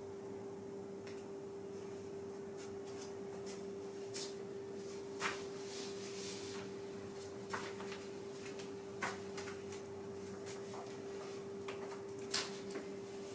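Large paper sheet on the floor crackling and rustling a few times, in short separate bursts, as a person shifts across it and steps off, over a steady hum.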